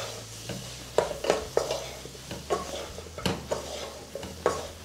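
Wooden spatula stirring and scraping spice-coated onion, tomato, brinjal and drumstick pieces around a nonstick pan, in about seven uneven strokes, over a light sizzle of the frying vegetables.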